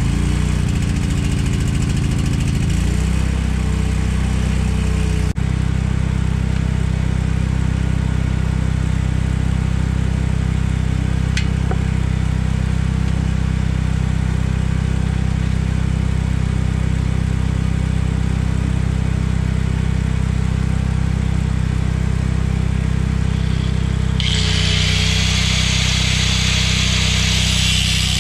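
Small petrol engine running steadily, settling to an even speed about three seconds in, just after being started. About 24 seconds in, a corded angle grinder starts cutting metal, the worn-out bearing being cut off the conveyor shaft, with a loud high hiss on top of the engine, whose note drops slightly under the load.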